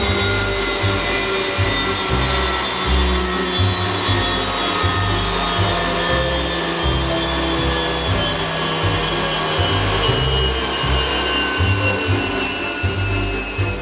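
Helicopter gas-turbine engine in a streamliner running on a first start, its high whine sliding slowly down in pitch over a rough low rumble.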